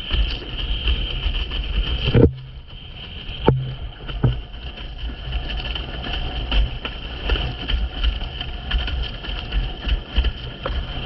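Wind buffeting the microphone and water rushing past a windsurf board moving fast over chop. About two seconds in a sharp knock is followed by a brief drop in the rush, then two more dull thuds of the board hitting waves before the steady rush returns.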